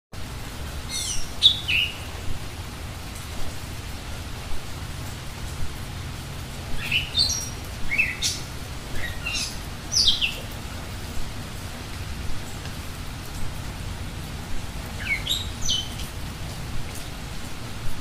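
Birds singing in steady rain: bouts of short calls that fall in pitch, one near the start, a longer one in the middle and one near the end, over a continuous hiss of rainfall.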